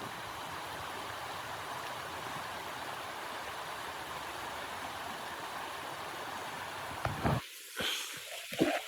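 Steady rushing of blizzard wind that cuts off suddenly about seven seconds in, followed by a few short knocks or crunches.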